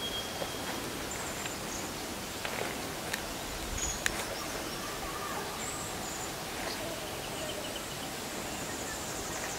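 Steady outdoor ambience, an even hiss, with a few short, high-pitched bird chirps scattered through it and an occasional faint click.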